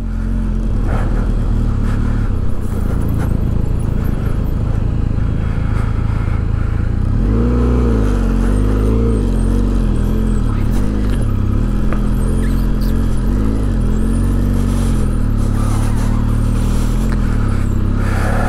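Benelli TRK 502X's parallel-twin engine running while the motorcycle is ridden through slippery mud, steady at first, then revving up and down repeatedly from about seven seconds in until shortly before the end.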